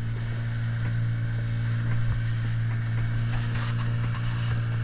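Fishing boat's engine running at a steady low drone.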